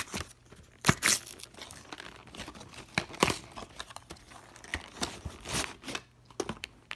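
Pokémon theme deck packaging being torn open and crinkled by hand, in several sharp, irregular rips.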